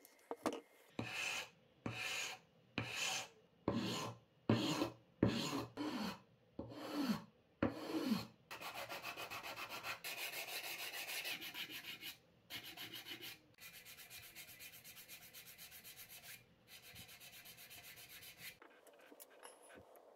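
Sandpaper rubbing on the wooden body of a toy car, hand sanding. First about nine slow, separate strokes, then from about eight seconds in a fast, even scrubbing that stops shortly before the end.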